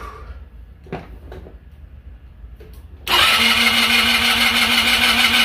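GY6 125cc scooter engine turned over on its starter with the spark plug out and a compression gauge in the plug hole, cranking steadily for about three seconds starting a little after halfway through. This is a dry compression test that reads 100 PSI; the reading rises with oil added, which the mechanic takes for worn piston rings.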